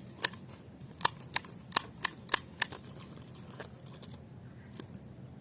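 A Renault Laguna reversing switch, out of the console, being clicked back and forth by hand: about seven sharp clicks in under three seconds, then a couple of fainter ones. The switch is being worked to spread contact cleaner over its dirty contacts, which made it work only intermittently.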